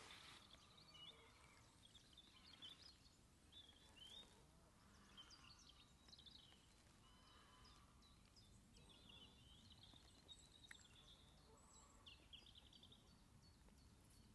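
Near silence with faint bird calls: short chirps and brief trills scattered throughout.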